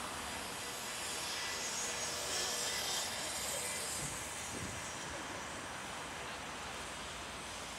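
City street background noise: a steady wash of traffic sound that swells briefly about two to three seconds in, then settles back.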